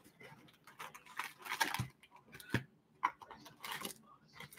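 Foil trading-card packs and a cardboard box being handled: short crinkly rustles and scrapes, with a couple of sharp light taps.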